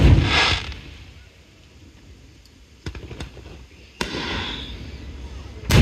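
Aerial fireworks shells bursting: a loud boom fading off at the start, two sharp cracks about three seconds in, another bang with a rumbling tail at four seconds, and a loud bang just before the end.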